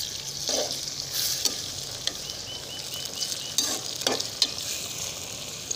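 Chopped tomatoes, green chillies and onions sizzling in hot oil in a steel karahi, stirred with a slotted metal spatula that scrapes and knocks against the pan a few times.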